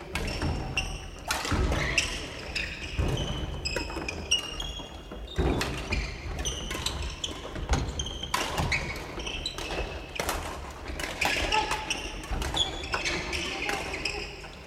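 Badminton rackets hitting shuttlecocks again and again on several courts at once: sharp clicks, some with a brief ringing ping, echoing around a large sports hall. Voices are mixed in with them.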